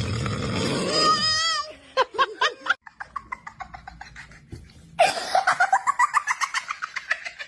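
A man's loud rasping snore stops about a second and a half in, and a baby laughs in short high-pitched bursts. The laughter fades for a moment, then comes back about five seconds in as a fast, rhythmic run of giggles.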